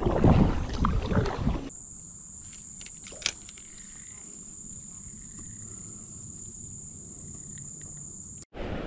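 Kayak paddle strokes splashing in the water for the first couple of seconds. Then the sound changes abruptly to a steady high-pitched insect drone, with one sharp click about three seconds in.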